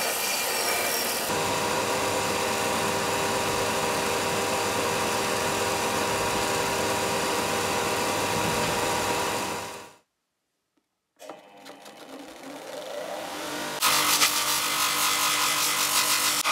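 Belt grinder running with a steel axe head ground against the belt, a steady noise with a constant hum. It cuts off suddenly about ten seconds in. After a moment of silence a bench buffing wheel motor spins up, and near the end steel is pressed against the turning wheel.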